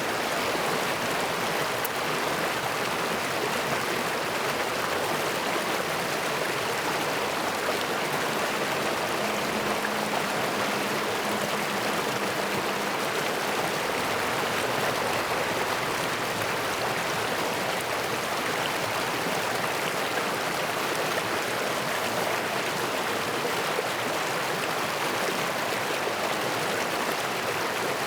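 Mountain stream rushing steadily, an even flow of water noise.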